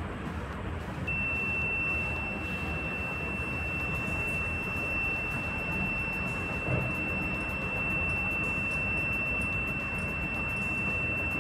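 A small electronic buzzer starts a steady high-pitched beep about a second in and holds it without a break. It is the full-charge alarm of a DIY battery charging module, sounding once the battery is fully charged.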